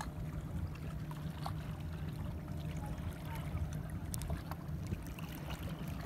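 Small sea waves washing and lapping against shoreline rocks, a steady low wash with a few faint clicks.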